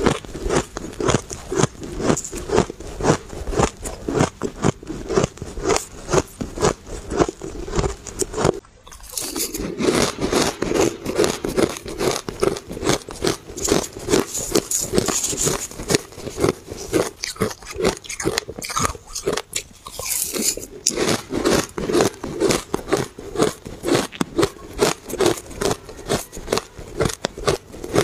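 Close-miked chewing of crunchy shaved ice: a rapid run of crisp crunches, several a second, with a brief pause about nine seconds in. A metal spoon also scrapes through the ice in a steel bowl at times.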